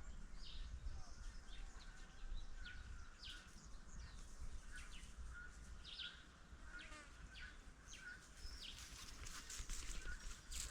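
Faint outdoor ambience of birds chirping and calling in short scattered notes, over a low steady rumble.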